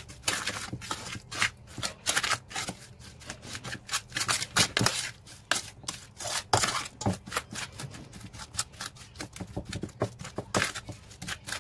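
Metal spoon stirring a thick marinade of chopped onion, garlic and spices around a metal pan, scraping and clinking against the bottom in quick, irregular strokes.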